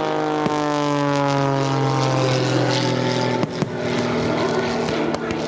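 Propeller airplane engine passing by, its pitch falling steadily for about three and a half seconds until it drops away. Sharp firework pops sound about half a second in, twice around three and a half seconds, and several more near the end.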